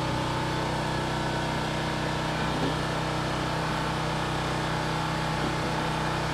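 Steady mechanical hum with several constant low tones, from machines running in a room of vending and arcade machines, with a couple of faint clicks.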